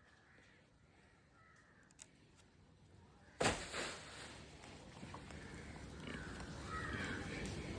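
A single sharp thump about three and a half seconds in, followed by louder steady background noise, with bird calls near the end.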